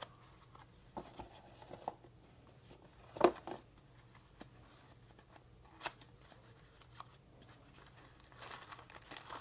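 A small black cardboard box being handled and opened by hand: scattered light taps and scrapes, with one sharper knock about three seconds in. Plastic bags crinkle near the end.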